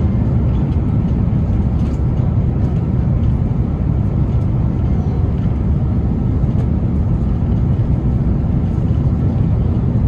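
Steady low rumble inside the passenger cabin of an Airbus A330-900neo in flight: engine and airflow noise.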